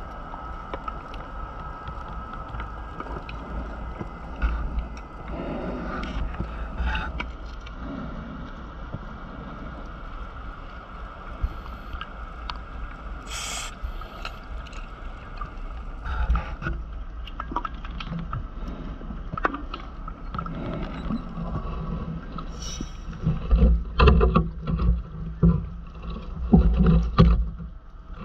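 Underwater sound picked up through a dive camera's housing: a steady low rumble and hiss with scattered small knocks. Near the end come several loud, irregular surges of gurgling bubbles.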